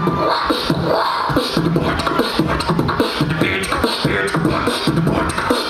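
Live beatboxing into a handheld microphone: a fast, dense rhythm of drum sounds made with the mouth, deep thumps alternating with sharp hissing hits.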